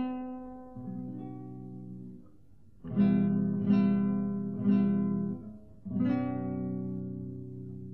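Acoustic guitar playing slow chords, each struck and left to ring out before the next, as background music.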